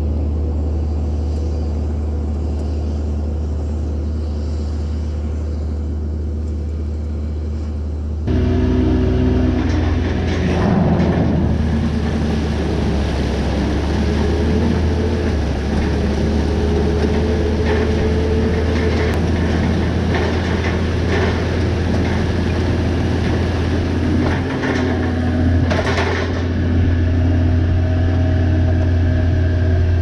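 Tractor-drawn slurry injector at work: a steady low machine rumble that jumps suddenly louder about eight seconds in, becoming busier, with rattles and clicks from the injector running through the ground.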